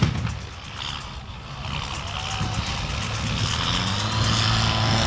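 A pyrotechnic blast dies away at the start. Then an armoured military vehicle's engine runs with a steady low drone that grows louder as the vehicle moves across the field.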